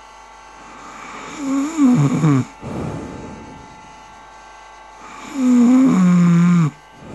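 A person snoring in loud, moan-like voiced breaths, twice. A breathy intake swells into a wavering moan that drops in pitch about two seconds in. A second, steadier moan near the end steps down in pitch and cuts off.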